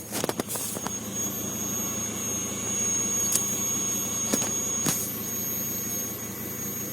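A steady high-pitched whistle over a low hum, with a few sharp clicks.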